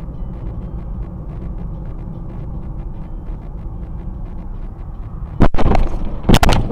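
Steady low road rumble inside a moving car, then about five and a half seconds in a sudden loud bang and crunching noise, with a second loud crash a second later: a collision with a car that has cut in right alongside.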